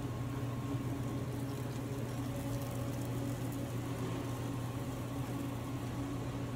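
Steady low electric hum of commercial kitchen equipment, with a few fainter higher tones over an even background hiss.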